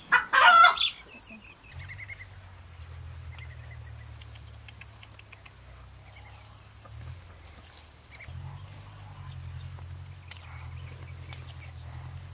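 A hen's loud squawk in the first second, following a run of clucks. After it the sound drops to a low steady hum, with faint scattered chirps and ticks.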